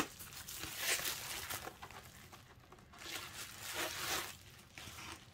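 Bubble-wrap packaging rustling and crinkling as a spiral-bound planner is slid out of it, in two spells: about a second in and again around three to four seconds in.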